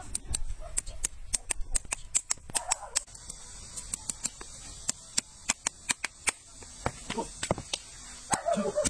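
Long-handled hoof knife paring a horse's hoof in quick strokes, each cut a sharp click, several a second.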